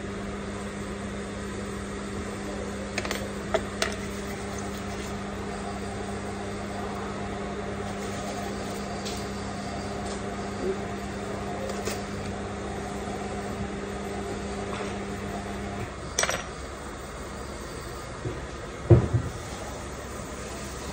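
A steady mechanical hum from a running machine that cuts off about sixteen seconds in, with a few light clicks and knocks of things handled on a workbench; the loudest knock comes near the end.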